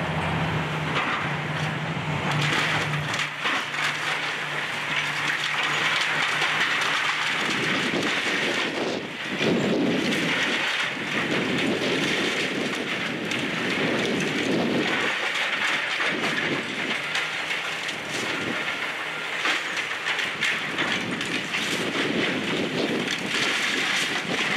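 Komatsu PC390 demolition excavator's grapple tearing into a brick wall: masonry cracking and debris clattering down in a continuous rattle that swells and eases in waves. The diesel engine hum is heard beneath it for the first few seconds.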